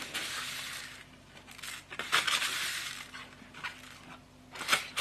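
Paper seed packet of lettuce seeds crinkling and rustling in the hands as seeds are picked out of it with a thin metal pick: a hissy rustle in the first second, a louder crinkle about two seconds in and another near the end.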